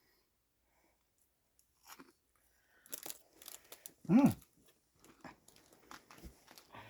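A person biting and chewing a crunchy snack, crisp crunches and chewing noises starting about two seconds in. About four seconds in there is a short, loud "mm" sound from the eater that rises and falls in pitch, the loudest moment.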